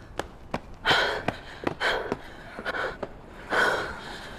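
Women panting and gasping hard for breath after running, in several loud breaths. Quick footsteps on pavement in the first two seconds, slowing and stopping.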